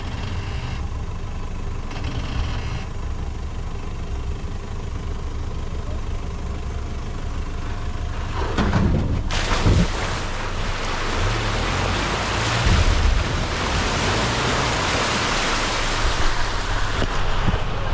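Mitsubishi Challenger 4WD engine running low and steady as the vehicle crawls down a steep sandy drop. A few low thumps come about halfway through, then a loud steady hiss rises over the engine.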